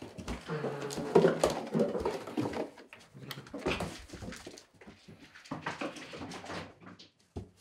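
A cat growling in low drawn-out calls while guarding a mouse it has caught. The main growl runs over the first couple of seconds and comes again more weakly later, with a few light knocks in between.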